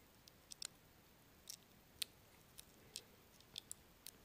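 Faint, irregular small clicks and ticks of fingertips handling a flat ribbon cable and its plastic board connector inside an opened tablet, about ten in all.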